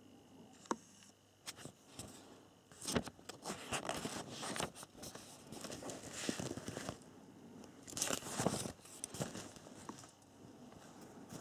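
Paper instruction manual being handled and its pages turned: irregular rustling and crinkling with small clicks, loudest in two spells, one about three seconds in and another about eight seconds in.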